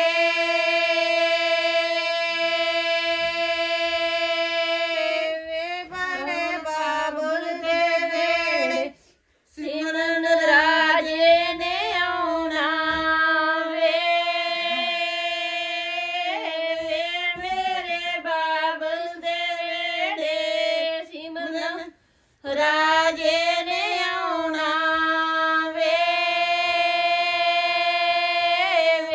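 Women singing a suhag, a Punjabi wedding folk song, together without instruments, drawing out long held notes. The song breaks off briefly twice, about a third of the way in and again about three quarters through.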